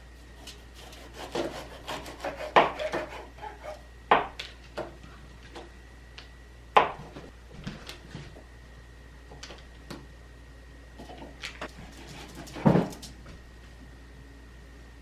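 Kitchen utensils knocking and scraping during food preparation: a handful of sharp knocks, the loudest about two and a half, four, seven and twelve and a half seconds in, among quieter scraping and rubbing.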